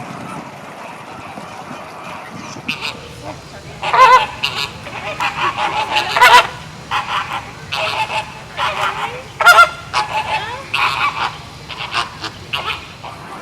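A flock of flamingos honking: short, goose-like calls, many overlapping, start a few seconds in and run on nearly to the end over a steady background hiss.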